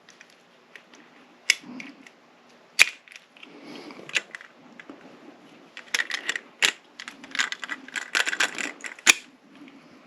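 Small metal lock parts clicking and clattering as a rekeyed lock is put back together by hand. Single sharp clicks come about a second and a half in and near three seconds, then a busy run of clicks from about six to nine seconds.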